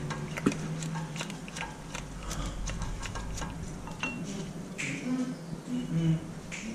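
Light, irregular metallic clicks and ticks of a Phillips screwdriver turning out a loosened brake-rotor retaining screw from the hub.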